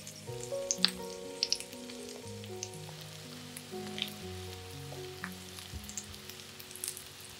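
Zucchini rings with an egg filling frying in a pan of oil: a steady sizzle with scattered sharp crackles, over background music of slow held notes.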